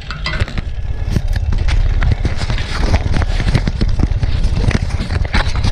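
Handling noise from a camera being taken off its mount and moved about: irregular knocks, clicks and rubbing against a padded jacket, over a low rumble.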